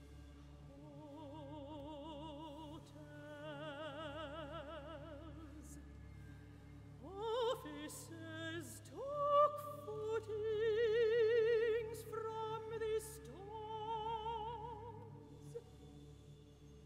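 Soprano solo singing slow, quiet phrases with wide vibrato, becoming louder and higher about halfway through, over a choir of tenors and basses and a low orchestral note held pianissimo beneath.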